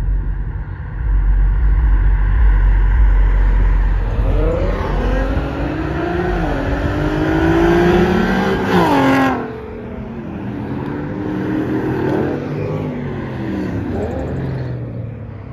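Several cars driving past one after another, starting with a deep engine rumble, then engines revving higher and higher as they accelerate by. The loudest rev cuts off suddenly about nine seconds in, and more cars rev past more quietly after it.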